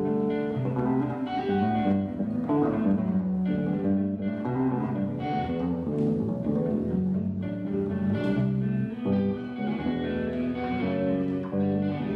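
Instrumental music led by plucked guitar over low bass notes.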